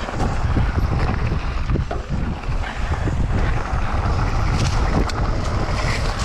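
Wind buffeting the microphone of a helmet camera during a mountain-bike descent of a dirt singletrack, a steady low rumble, with scattered short knocks and rattles from the bike over the rough trail.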